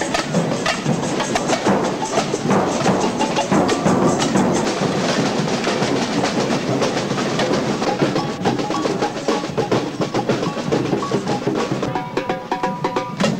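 Samba street drum band playing a fast, dense rhythm on large bass drums and snare drums. Near the end, a few held pitched notes come in over the drums.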